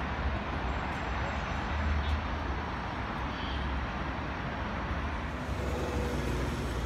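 Steady road-traffic noise of a busy city street: a constant hiss with a low rumble underneath.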